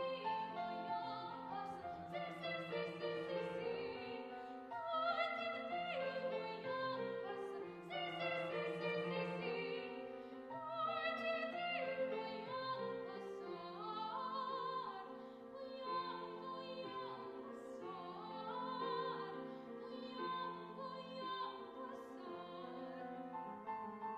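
A woman singing a classical art song in an operatic style with vibrato, accompanied by an upright piano.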